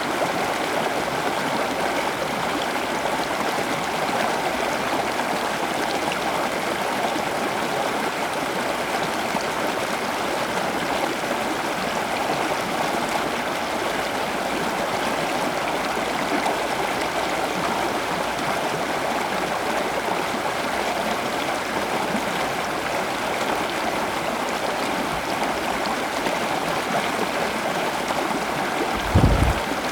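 Steady rushing of running water, like a small stream or a garden water feature, unchanging throughout. A brief low thump comes near the end.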